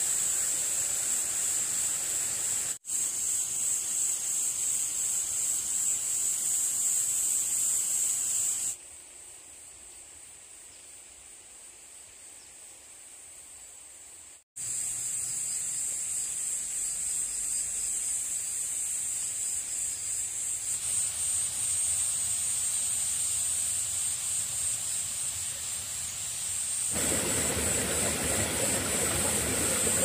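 Chorus of singing insects: a steady high-pitched trilling that breaks off abruptly several times, much fainter for a stretch in the middle.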